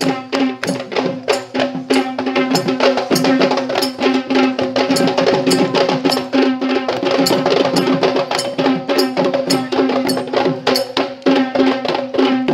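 Dance music driven by fast hand drumming, about five strokes a second, over a steady held tone.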